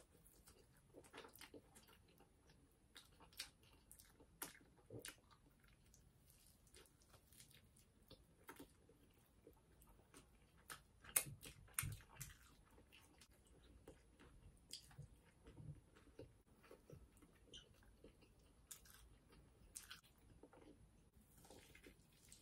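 Faint close-up sounds of a person eating fried chicken wing and salad: chewing and biting with scattered short clicks, with a louder cluster about halfway through.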